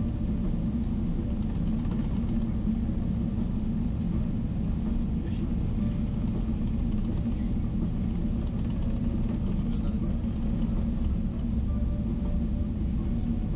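Steady low cabin rumble of a Boeing 777-300ER, with its GE90 engines at taxi power, heard from a window seat while the airliner taxis after landing.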